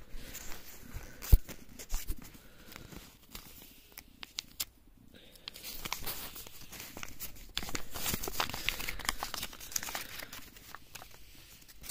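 Kinder packaging crinkling and tearing as it is handled and opened by hand, with a sharp tap a little over a second in. Scattered clicks at first, then denser crinkling from about halfway through.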